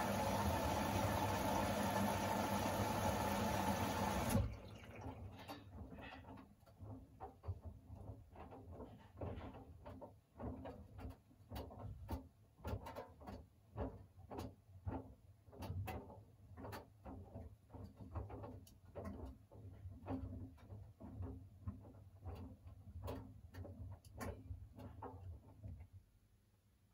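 Siemens iQ700 front-loading washing machine drawing water in through the detergent drawer: a steady rush of inflowing water that cuts off sharply about four seconds in. The drum then turns slowly, with irregular soft knocks and splashes of wet shirts and water tumbling inside, until it falls almost quiet near the end.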